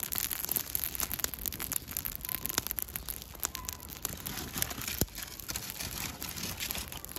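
Lump charcoal and kindling wood burning in a kettle grill, crackling with many small, sharp pops and snaps.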